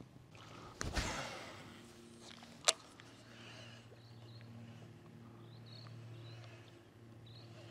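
Bow-mounted electric trolling motor humming steadily and low. A brief whoosh, a rod being cast, comes about a second in, and a single sharp click follows just under three seconds in.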